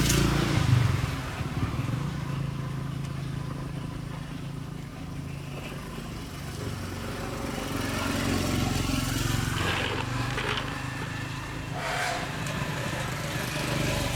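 A motor running steadily with a low hum, louder in the first second.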